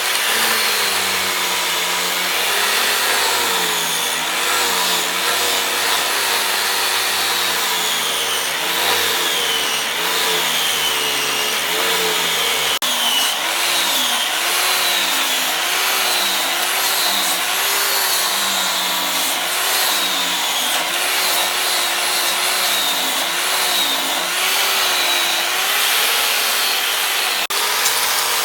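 Electric grinder running continuously against the leaf-spring steel of a knife blade, over a dense grinding hiss. The motor's pitch dips and recovers about once a second as the blade is pressed on and eased off.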